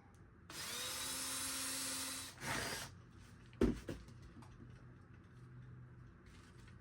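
Electric drill with a 1/2 inch bit boring a dowel hole through wood: the motor spins up with a whine, runs for about two seconds and winds down. A single sharp knock follows.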